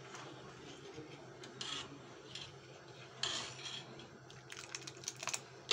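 Metal ladle stirring compote in a stainless steel pot, with scattered swishes and light scrapes and clicks against the pot, over a faint low steady hum.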